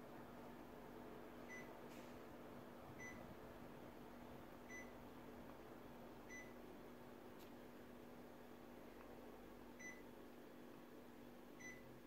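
Panasonic CS-LN9WKJ mini-split indoor unit beeping six times, one short high beep each time it takes a command from the remote as the set temperature is stepped. Under the beeps is a faint steady hum and hiss from the running unit, with a few soft clicks.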